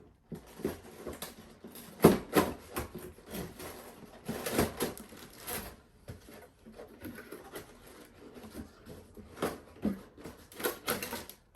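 Cardboard box being opened by hand and the packaging handled: irregular rustling, scraping and knocks of cardboard and plastic, with a sharp knock about two seconds in.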